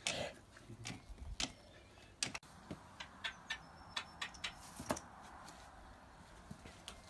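Scattered light knocks and clicks, irregular, a few a second, from a pony's hooves as its feet are handled and set down.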